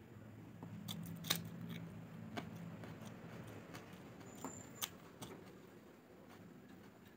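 Eating food by hand from a metal plate: chewing and biting with the mouth closed, with a few sharp clicks, the loudest a little over a second in.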